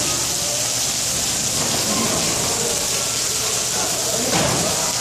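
Steady hiss of heavy rain, with rainwater leaking through the ceiling of a large hall. A brief louder sound stands out about four seconds in.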